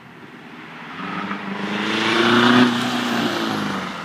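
Straight-piped 2003 VW Golf TDI, a 1.9-litre four-cylinder turbodiesel, accelerating past: its engine note grows louder and rises slightly, is loudest about two and a half seconds in, then drops in pitch and fades as the car pulls away.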